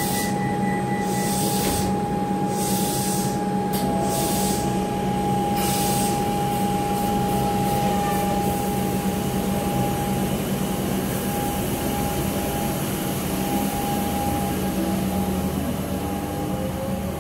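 A Comeng electric suburban train standing at the platform with a steady hum. Repeated bursts of air hiss come in the first six seconds as the doors close. Near the end it pulls away with a rising motor whine.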